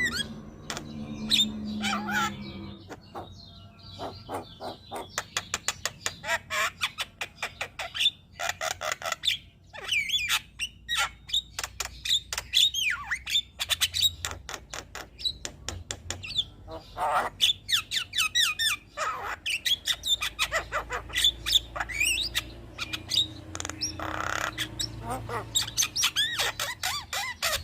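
Javan myna (jalak kebo) singing continuously: fast runs of clicks and harsh chatter mixed with squawks and whistled notes that slide up and down.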